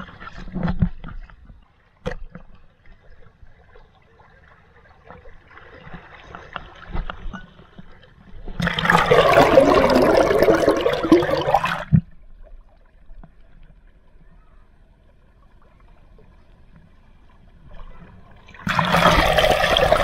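Shallow stream water splashing around a camera held at the surface, with two loud spells of rushing, gurgling water as the camera plunges under. The first comes about nine seconds in and lasts some three seconds, the second near the end. Between them there is quieter trickling and lapping.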